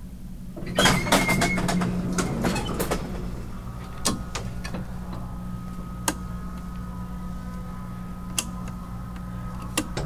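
Sharp single clicks of the toggle switches in an Otis elevator car's service cabinet being flipped, over a steady low machine hum. A rattling clatter comes about a second in, and a steady whining tone sets in a few seconds later.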